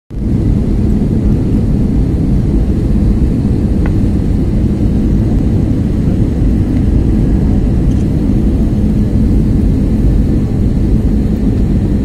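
Steady, loud low drone of a jet airliner's cabin in cruise flight: turbofan engines and rushing air heard from a window seat.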